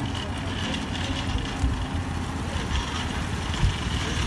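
Engine of a Toyota Coaster minibus idling close by, a steady low hum, with a shopping cart's wheels rattling over the pavement and a single thump about three and a half seconds in.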